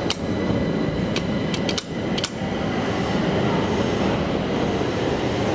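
Steady rumbling noise of a metro station, with a click as the elevator's call button is pressed at the start and a few more sharp clicks about two seconds in.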